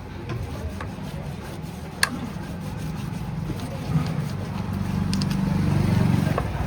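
A motor vehicle engine running, growing louder toward the end, with a sharp click about two seconds in.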